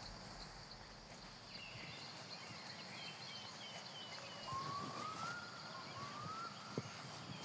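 Forest ambience: a steady high insect drone, with birds giving a quick series of short chirps and then two rising whistled notes, and a single sharp click near the end.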